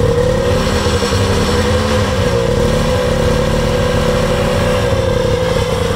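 Polaris RXL 650 three-cylinder two-stroke snowmobile engine running through its stock muffler, revved up and eased back a couple of times, with the revs kept below clutch engagement.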